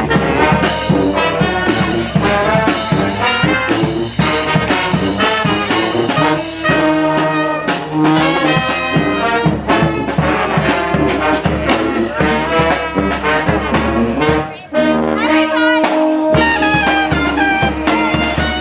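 Street brass band playing an up-tempo tune: trumpets, trombones and saxophones over a steady beat, with a brief break about three-quarters of the way through before the horns come back on a held chord.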